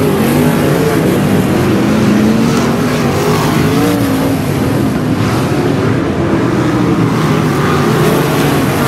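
A field of 305 winged sprint cars running on a dirt oval: several V8 engines at once, their pitches rising and falling as the cars pass and lap the track.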